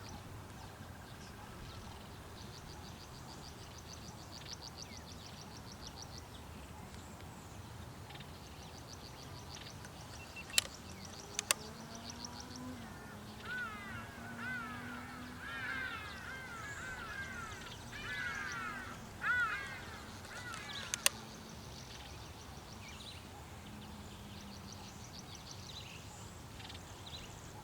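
Quiet outdoor ambience with birds calling. A rapid high ticking trill comes in the first several seconds, and a run of chirpy, repeated calls about halfway through. A few sharp clicks are heard in between.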